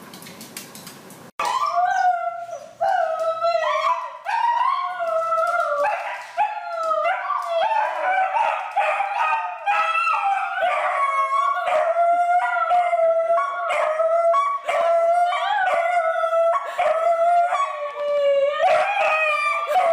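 Dog whining and howling nonstop in excited greeting, a long run of high cries that rise and fall. It starts suddenly about a second and a half in.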